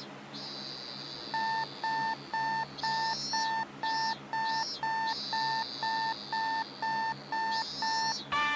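Electronic alarm clock beeping, short even beeps at one pitch about twice a second, starting a little over a second in and stopping just before the end. High chirping runs underneath, and a guitar chord strikes at the very end.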